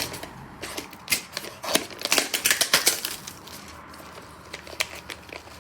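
A plastic moisture-absorber tub being cut open and handled: a quick run of clicks, crackles and scrapes, densest in the first few seconds and then thinning out.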